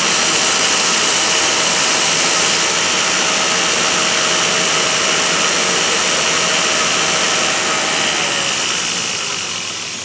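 Power grinder running steadily during the grinding of a small forged steel hammer head, then winding down near the end as it is switched off.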